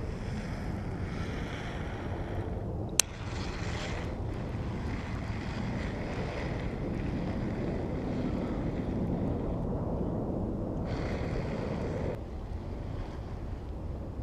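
Wind buffeting the microphone over a steady wash of water sound, with a single sharp click about three seconds in.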